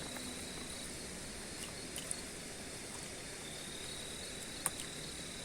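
Night insects trilling steadily on one high, thin tone, with a single sharp click about two-thirds of the way through.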